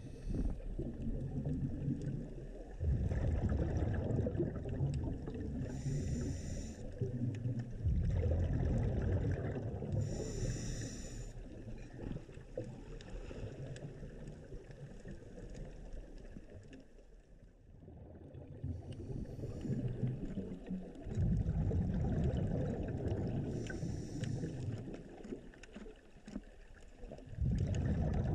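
Underwater sound picked up through a camera housing: a muffled, gurgling water rumble that swells and fades every few seconds, with short hissing bursts in between.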